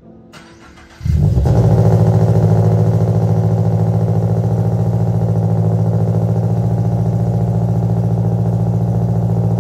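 2022 Subaru BRZ's 2.4-litre flat-four boxer engine starting up: it catches about a second in, runs a little louder for a moment, then settles into a steady, loud idle. It breathes through unequal-length catless headers and a catback exhaust.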